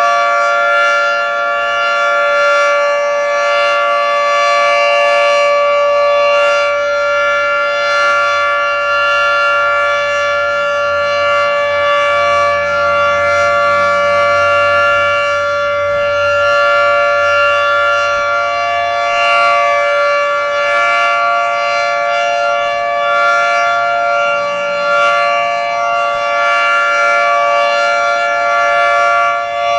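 Federal Signal 3T22 three-tone rotating electromechanical warning siren sounding a steady chord at full speed, its loudness swelling and dipping gently as it turns.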